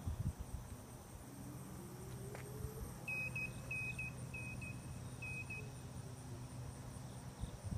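A run of short, high beeps in quick pairs, starting about three seconds in and stopping near six seconds, over a low, fluctuating rumble with a steady hum.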